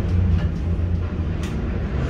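Container gantry crane's machinery running with a steady low drone as the spreader handles a container.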